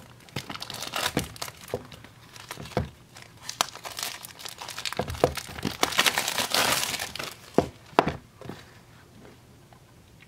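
Sealed product packaging being opened by hand: crinkling and tearing with many sharp clicks and snaps, busiest in the middle with two loud snaps, then dying down near the end.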